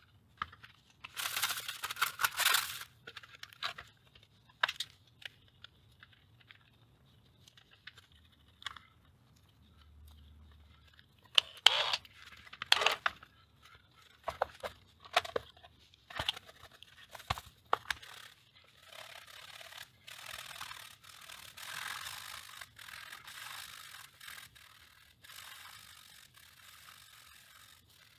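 Parts of a vintage portable tape recorder clicking and knocking as it is handled and fitted back together, then a cloth rubbing back and forth over its case for the last several seconds.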